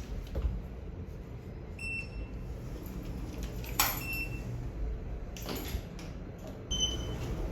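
A few sharp knocks and short high-pitched ringing tones over a low steady hum, the loudest knock about four seconds in.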